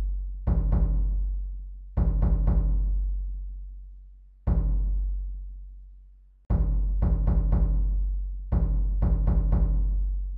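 Deep drum beats in a slow rhythm: short clusters of one to four strokes about every two seconds, each leaving a long low boom that fades away.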